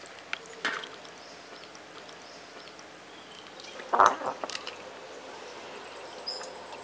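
Outdoor background with faint bird chirps, and about four seconds in a short clunk at a traditional stone grinder as a handful of soaked lentils is dropped into it beside the stone pestle, followed by a few small knocks.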